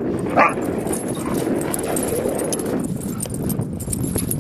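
Dogs play-wrestling: one dog gives a single short yip about half a second in, over the steady scuffle of the tussle.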